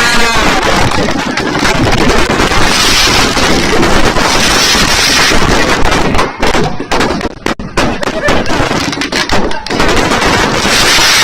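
Fireworks and firecrackers going off in rapid succession, a loud dense crackle of bangs, with a run of separate sharp bangs in the second half.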